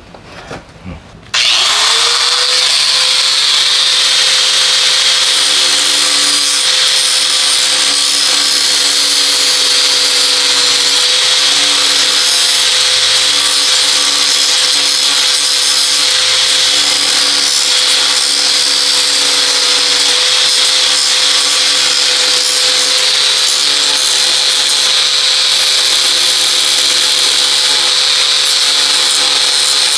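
A handheld electric power tool starts about a second in, spins up and runs at a steady speed with an even whine and hiss.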